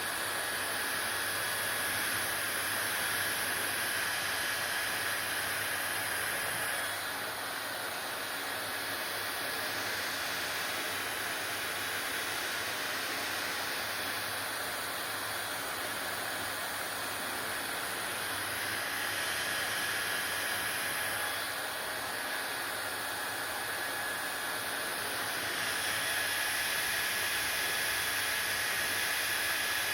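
Hair dryer blowing steadily: a continuous hiss with a faint high whine and a low hum, the sound shifting a little in level every few seconds.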